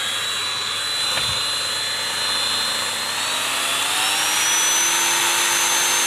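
Dremel rotary tool with a thin cut-off wheel running at high speed against a metal seat-belt anchor plate, cutting it off. It gives a steady high whine over a grinding hiss, and the whine rises in pitch about halfway through.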